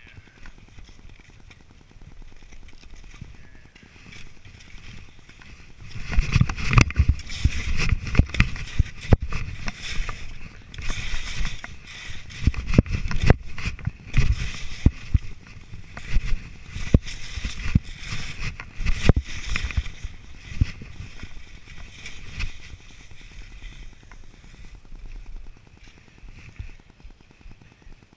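Skis sliding and scraping through snow during a run through trees, with wind buffeting the microphone and irregular knocks and rattles from the gear. It is quiet for the first few seconds, loud and choppy from about six seconds in to about twenty-one, then eases off.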